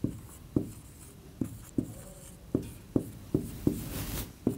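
Marker pen writing on a whiteboard: a run of short taps and strokes as digits are written, with one longer scratchy stroke about four seconds in.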